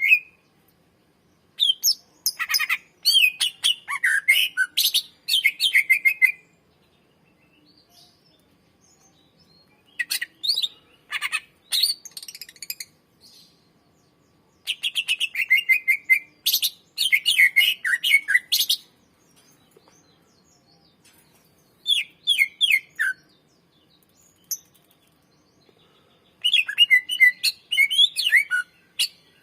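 Green leafbird (cucak ijo) singing in about five bouts of fast, varied chirps and trills, each lasting one to five seconds, with short quiet pauses between them.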